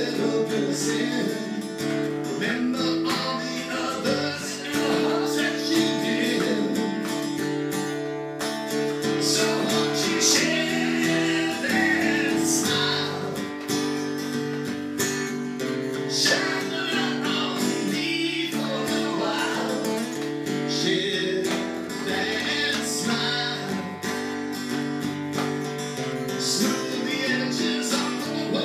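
A song played live on strummed acoustic guitar, with some singing.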